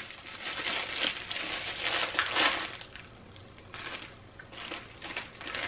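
Plastic crisp packet of prawn cocktail crisps crinkling and crackling as it is pulled open by hand. The crinkling is louder for the first couple of seconds, then fainter.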